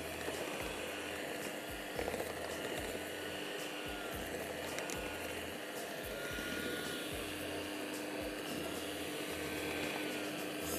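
Electric hand mixer running steadily, its motor giving a wavering whine, as it beats dry flour into cupcake batter.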